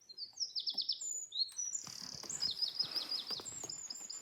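Small wild songbirds chirping, with several quick high trills of rapidly repeated notes.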